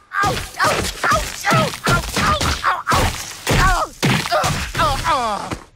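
A man crying out and groaning in pain in a rapid string of short yelps, about three a second, as his body thuds against rocks while tumbling down a cliff, ending in a longer falling cry.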